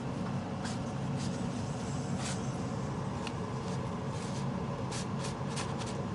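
A roti cooking in a dry frying pan, pressed and turned with a folded cloth: short soft crackles and rubs, about ten of them, scattered over a steady low hum.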